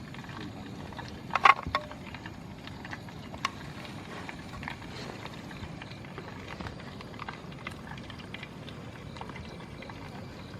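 Chicken frying in oil in a camp pan: a steady sizzle dotted with small crackles and pops, with a sharp clatter about a second and a half in.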